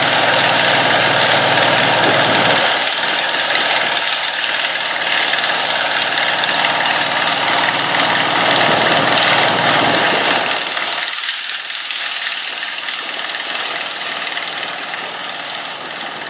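John Deere 55 EB self-propelled combine running steadily while harvesting soybeans: its engine and threshing machinery make a dense, even mechanical noise. The deep part of the sound drops away about eleven seconds in, and the sound fades near the end.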